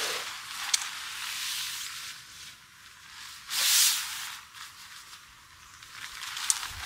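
Nylon tent rainfly rustling and swishing as it is flung over a tent and pulled into place, with one louder swish about halfway through and a couple of light ticks.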